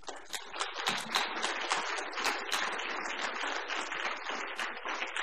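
Audience applauding, many hands clapping at once; it breaks out suddenly and keeps up steadily.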